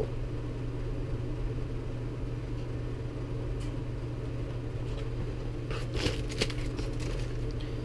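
Plastic lure packaging and a cardboard shipping box rustling and crinkling briefly as they are handled, about six seconds in, over a steady low machine hum.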